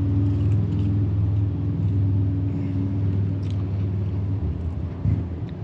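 A motor vehicle engine running close by: a low, steady drone that fades out about four and a half seconds in, with a short thump just after. Faint crunchy chewing of curly fries alongside.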